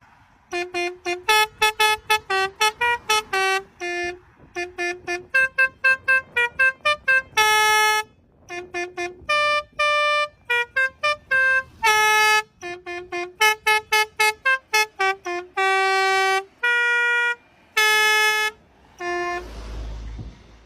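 Telolet multi-tone bus horn playing a fast tune: a quick run of short, bright horn notes at changing pitches, with a few longer held notes. Near the end a low rumble briefly takes over.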